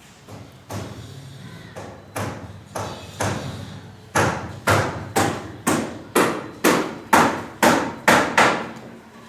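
Repeated hammer blows on a building site. They come about a second apart at first, then quicken to about two a second from around four seconds in, each with a short ring.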